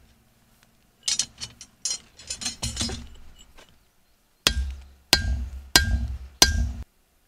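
Hand hammer striking a dull chisel held on a red-hot chunk of iron meteorite on the anvil, four blows about two-thirds of a second apart, each with a short metallic ring; the blunt chisel is driven in to tear the meteorite apart along its existing cracks. Before the blows, a flurry of small clinks and scrapes of tools against the metal.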